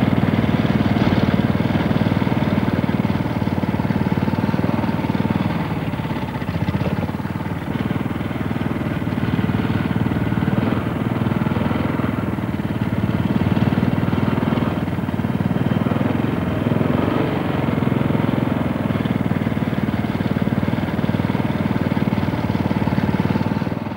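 Off-road motorcycle engine running hard under way, its level swelling and easing a little as it is ridden, with no break.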